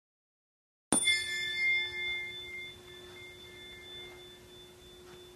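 A single bell-like ding struck about a second in, out of silence. Its higher tones fade within a second or two, while one lower tone keeps ringing faintly.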